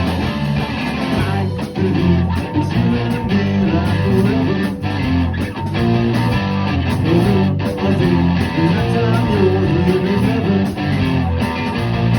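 Music with plucked and strummed guitar over a bass line.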